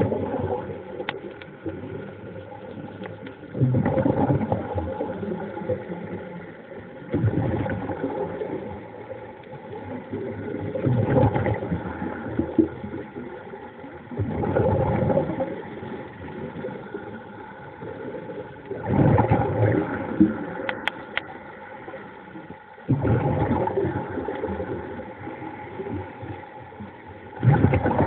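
Muffled underwater sound: a faint steady hum with a louder noisy surge every three to four seconds.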